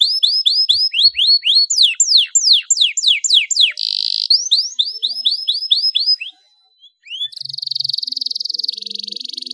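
Domestic canary singing: rapid repeated whistled notes, each sweeping downward, several a second, with a short buzzy note about four seconds in. After a brief pause it breaks into a fast, dense trill.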